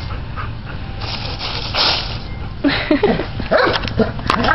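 Dry fallen leaves rustling and crunching as a cat burrows through a leaf pile, with a few short sounds that slide in pitch in the second half.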